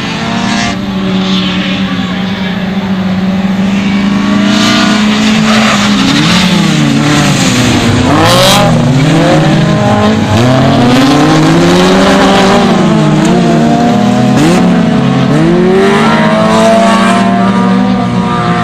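Several autocross race cars' engines at full throttle, revving up and dropping through gear changes, with their pitches rising and falling and crossing one another as the cars pass.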